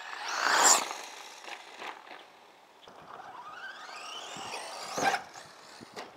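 Brushless electric motor of an HPI Blitz short-course RC truck whining, its pitch rising as the truck speeds up. There is a loud rush about half a second in, and sharp knocks near the end, about 5 and 6 seconds in.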